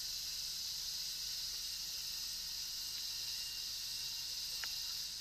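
Steady high-pitched insect chorus from the forest, an even shrill hiss with no breaks.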